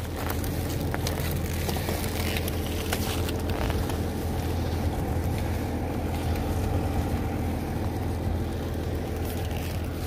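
A vehicle engine idling, a steady low hum with no change in speed. A few faint crackles sound over it in the first few seconds.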